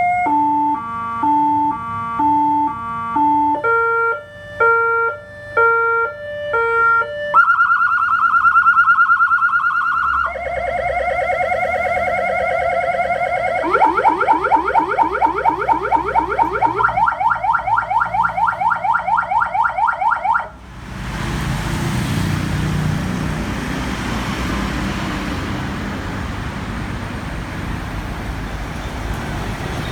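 Electronic emergency-vehicle siren run through a series of tones: an alternating high-low two-tone, a second stepping two-tone pattern, then fast warbling tones and a rapid pulsing tone. It cuts off suddenly about twenty seconds in, leaving a steady vehicle and traffic rumble.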